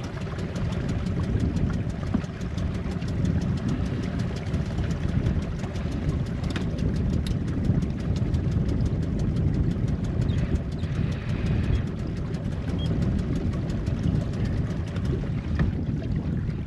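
Small outboard motor on a trailer sailer running steadily, a low even rumble.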